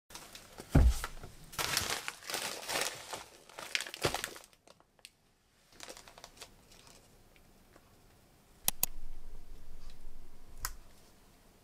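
Plastic grocery packaging, such as bags of frozen vegetables and a pack of mushrooms, crinkling and rustling as it is handled and set down on a kitchen counter. A thump comes about a second in and the crinkling runs for the first few seconds. Quieter handling follows, with two sharp clicks near the end.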